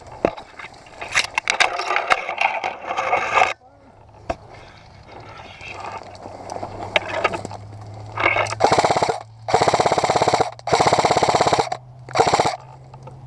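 Airsoft rifle firing four rapid full-auto bursts in the second half, the middle two about a second long. A stretch of crackling noise comes first, in the opening few seconds.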